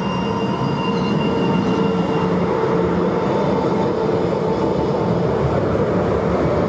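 Low-floor electric tram passing close by on street rails: steady rolling noise from the wheels with a steady whine over it.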